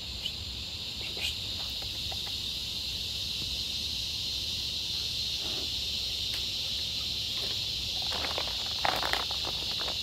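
Cicadas buzzing in a steady, continuous high-pitched chorus that grows slightly louder, with a few short rustling clicks near the end.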